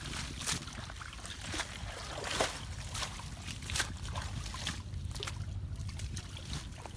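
Shallow pond water sloshing and splashing, with wet rustling of water hyacinth being pulled out and a bamboo-framed net being worked through the water. There are irregular sharp splashes about a second apart, over a low wind rumble on the microphone.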